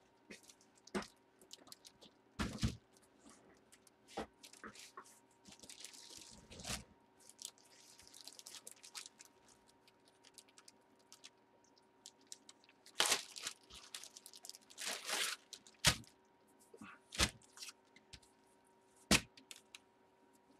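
Plastic packaging crinkling and rustling in irregular bursts, with scattered clicks and knocks, as bagged jerseys are handled. The busiest crinkling comes about two-thirds of the way in, and a sharp knock comes near the end.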